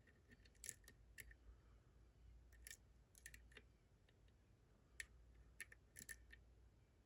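Faint, irregular metallic clicks from a hook pick working the pins of a Ruko Combi 2 sidebar lock, small clicks as pins are lifted and set, about a dozen spread unevenly.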